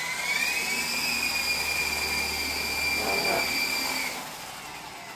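MJX T-10 coaxial RC helicopter's electric motors and counter-rotating rotors spinning up with a rising whine, holding a steady high whine, then dropping away about four seconds in as the throttle is cut.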